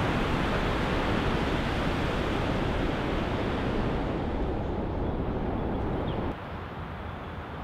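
Ocean surf breaking and washing up a beach, a steady rush; about six seconds in it cuts to a quieter, softer background hiss.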